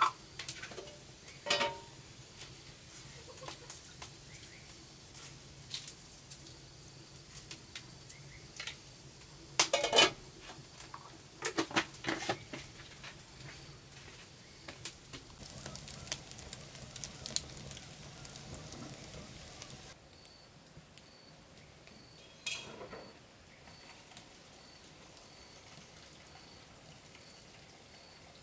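Cooking sounds at a wood-fired stove: scattered clinks and clanks of a metal pot and utensils over faint sizzling, the loudest clatters about ten and twelve seconds in. About two-thirds of the way through it turns quieter, leaving a faint high chirp repeating steadily.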